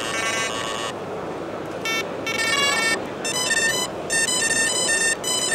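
Mivardi MX wireless carp bite alarm beeping in a run of short electronic tones that step up and down in pitch, as its tone setting is run through from highest to lowest.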